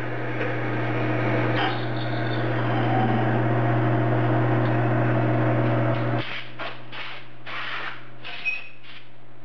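Metal lathe running with a steady motor hum while drilling 416 stainless steel, at 315 RPM. About six seconds in the hum cuts off, and several short scratchy strokes follow as a brush sweeps chips off the coasting chuck.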